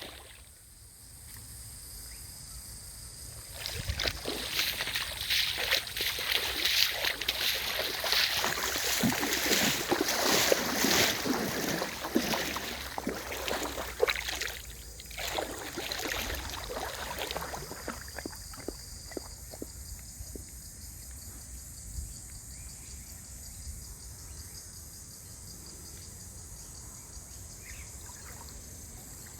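Water splashing and sloshing in a creek, busy and irregular, starting a few seconds in and dying away after about a dozen seconds to a quieter steady wash of moving water.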